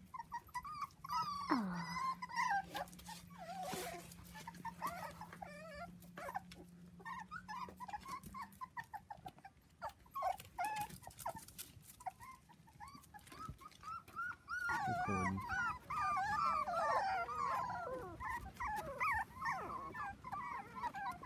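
Four-week-old Dachshund puppies whimpering and squeaking, many short high-pitched cries from several pups at once, growing denser in the second half.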